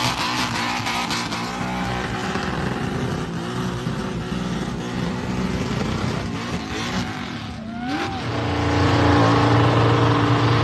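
Burnout car's engine revving hard while its rear tyres spin and smoke, with a heavy rushing tyre noise over the engine. About eight seconds in, the sound changes to an engine held at steady high revs.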